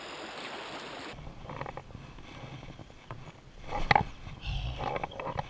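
Creek water running in a steady rush that cuts off abruptly about a second in. After that come scattered knocks and rustles close to the microphone, with one loud knock a little past the middle.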